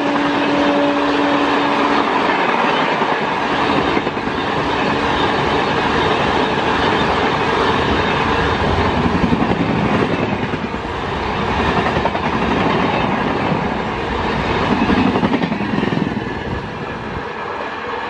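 Express train's coaches rushing past at about 110 km/h, with the clickety-clack of wheels over rail joints. The tail of the locomotive's horn fades out in the first couple of seconds, and the noise eases near the end as the last coach goes by.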